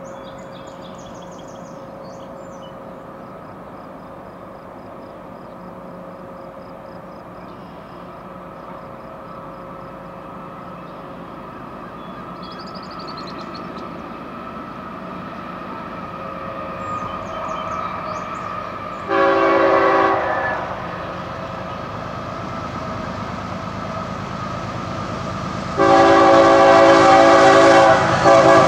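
Freight locomotive's multi-chime air horn on an approaching train. A rising rumble builds, then comes one blast of about a second and a half. A few seconds later a long, loud blast starts and is still sounding at the end.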